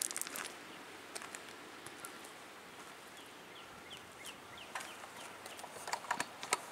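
Faint outdoor quiet with a few short, falling bird chirps near the middle and scattered clicks and crunches of footsteps and handling on gravel, clustered near the end.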